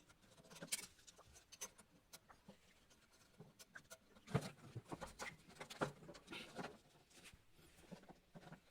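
Scattered light clicks and knocks at irregular intervals, the loudest a sharp knock about four and a half seconds in.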